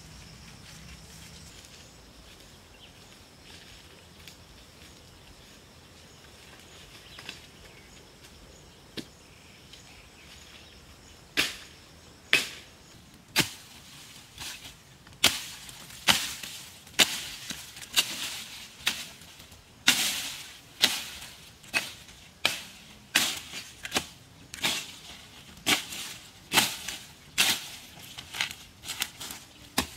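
Machete slashing through tall grass and weeds in repeated sharp strokes. The strokes begin about a third of the way in at roughly one a second and come faster towards the end, over a faint outdoor background.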